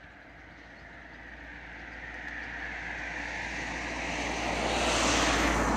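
A vehicle passing by: its noise builds steadily for about five seconds, peaks near the end, then starts to fade.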